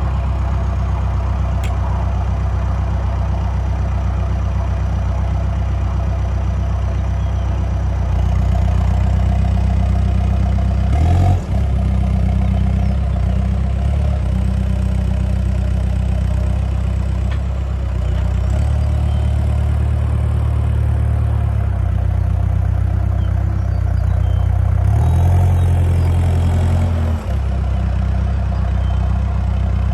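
Diesel engine of a New Holland B95B loader backhoe running steadily. Its tone shifts a few times, about a third of the way in, around two-thirds of the way, and again near the end.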